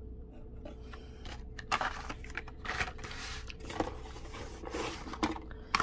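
Carded Hot Wheels cars being handled and pulled from a cardboard shipping case: irregular rustling and scraping of plastic blister packs and cardboard, picking up a couple of seconds in.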